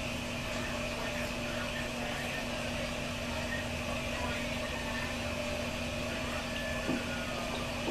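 A steady mechanical hum with a faint click about seven seconds in.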